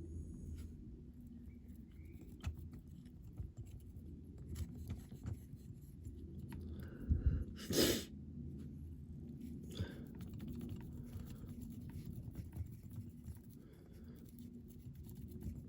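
Light clicks and taps of small handwork on a diecast model at a bench, over a low steady hum, with one short loud burst about eight seconds in.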